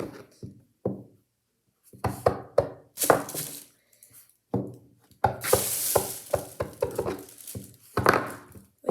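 A small fidget toy being handled and set moving: a string of clicks and knocks, with a longer rattling rush about five seconds in.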